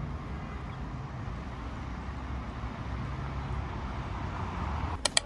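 Steady low rumble of road traffic, with a brief rattle of clicks near the end.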